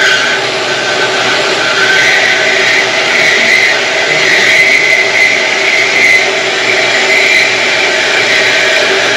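Pedestal metal-cutting saw running and cutting steel bar stock: a loud, steady machine noise with a high whine.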